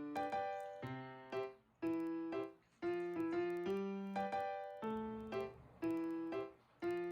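Background music: a gentle piano melody in short phrases of sustained notes.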